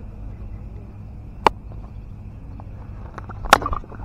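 Steady low rumble on a GoPro action camera's microphone at a cricket pitch. A sharp knock comes about a second and a half in, and a louder knock near the end is followed by a few lighter ones.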